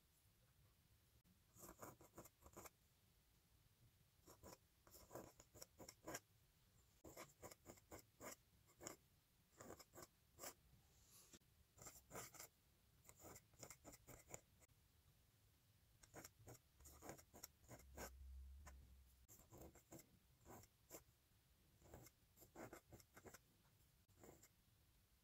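A pointed steel dip-pen nib scratching across paper in quick strokes and clusters with short pauses, as cursive calligraphy letters are written. A brief low rumble about two-thirds of the way in.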